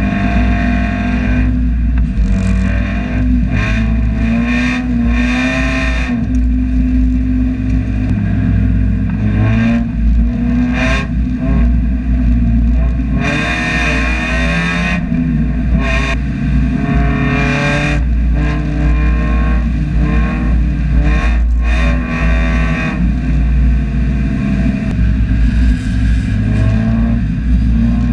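Mazda Miata race car's four-cylinder engine heard from inside the cockpit, revving up and dropping again and again as it shifts and brakes around the track, with short bursts of noise laid over it.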